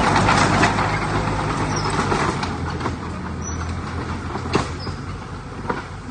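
Heavy earth-moving machinery's diesel engine running steadily, with a rushing noise loudest over the first two seconds and a few sharp knocks in the second half.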